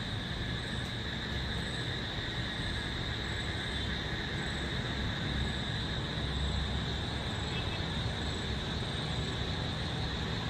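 Night-time ambience: a steady high-pitched drone of nocturnal insects over a low rumble of distant traffic, the rumble swelling slightly about halfway through.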